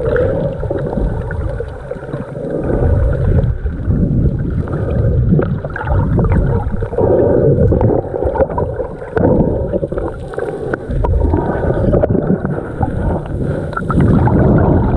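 Muffled underwater sloshing and surging of shallow surf heard through a submerged camera, a low rumble that swells and eases every few seconds, with scattered light clicks.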